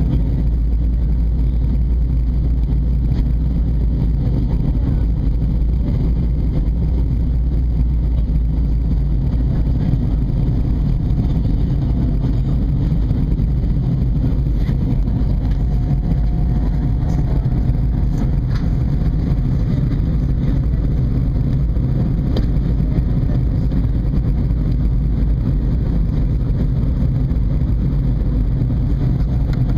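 Steady low rumble inside an Airbus A320's cabin during descent: the jet engines and the air rushing past the fuselage, heard through the cabin walls. A faint steady hum joins in about halfway through.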